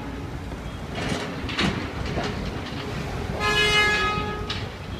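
A toy vehicle's horn sounding once, a held tone about a second long, with a couple of short plastic clatters before and after it.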